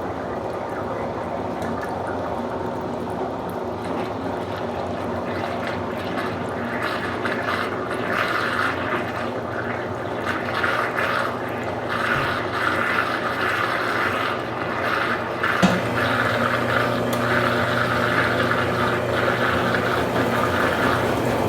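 Consul Supercargo 8 kg washing machine filling with water: a steady rush of water pouring into the tub, growing stronger after a few seconds. A sharp click about two-thirds of the way in is followed by a stronger low hum.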